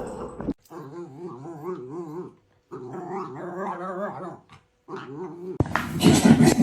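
A dog vocalizing in three long calls whose pitch wavers up and down, each a second or two long with short silences between. A louder, noisy sound starts abruptly near the end.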